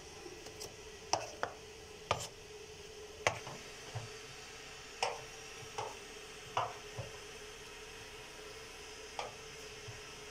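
Metal spoon stirring besan (gram flour) batter in a plate, clinking and tapping against the plate in irregular single strikes, about a dozen, most of them in the first seven seconds.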